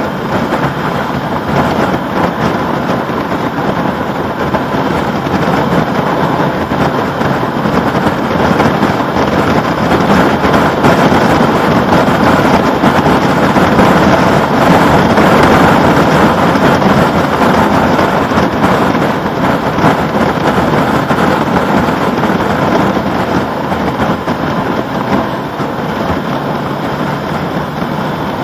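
Wind rushing over the microphone of a motorcycle cruising at expressway speed, with road noise mixed in. It grows louder toward the middle and eases near the end.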